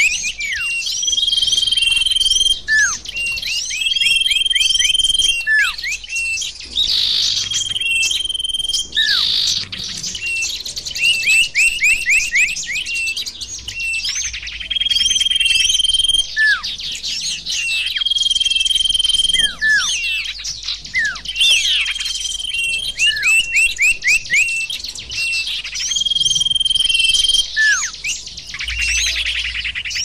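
Bird-lure (pikat) recording of small songbirds calling and singing in a dense loop. Quick runs of high twittering chirps and short falling notes mix with a held high whistle that comes back every few seconds.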